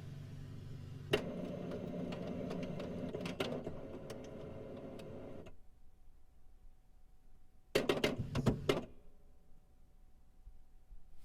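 Printer printing: a steady mechanical whir with a few clicks for about five and a half seconds, which then stops. After a short pause comes a loud clattering burst of clicks lasting about a second.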